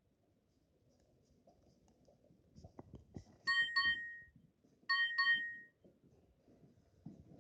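A Nokia 7650 ringtone played through an Explay SL240 mobile phone's small speaker: two pairs of short, high electronic beeps about a second and a half apart, with faint handling clicks and rustle before them.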